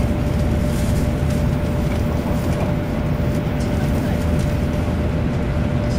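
Shinkansen train running, heard inside the passenger cabin: a steady low rumble with a faint steady whine and light irregular ticks.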